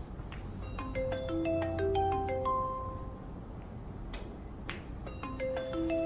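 A short bright melody of marimba-like mallet notes, played twice about four and a half seconds apart, with a few sharp clicks in between.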